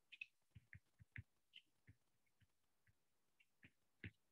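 Faint, irregular taps and clicks of a stylus tip on a tablet's glass screen during handwriting, about a dozen small ticks with a sharper one near the end.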